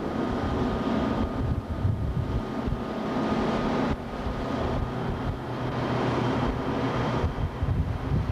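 Wind buffeting the microphone in gusts over the steady drone of a boat's engine.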